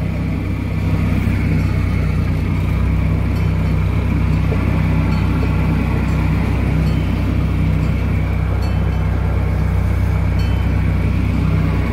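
Miniature train ride's engine running steadily, heard from aboard an open passenger car as it rolls along: a constant low drone.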